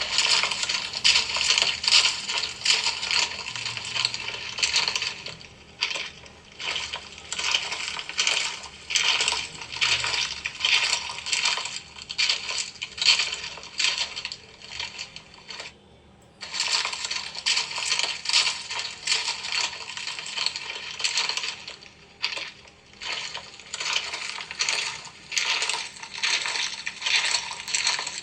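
Rounded pieces of dyed gym chalk being crushed, a dense crumbly crackling made of many small crunches, with a few short breaks.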